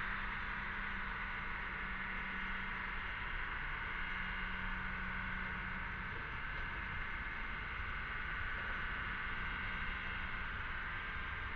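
Chorus of cicadas: a continuous, steady high buzz, with a low steady hum beneath it for the first half.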